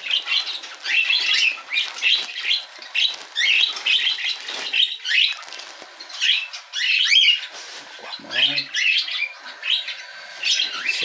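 Small caged parrots, budgerigars and cockatiels, chirping and chattering continuously in quick, short, often rising calls.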